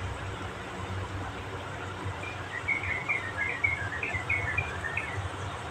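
Water boiling hard in a wok over a gas burner, a steady bubbling over a low burner rumble. About two seconds in, a run of quick, high chirps lasts about three seconds.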